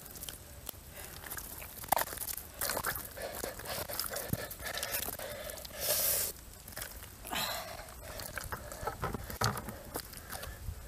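Hands digging and pulling through thick, wet mud: irregular squelching, sucking and crackling, with a louder wet squelch about six seconds in.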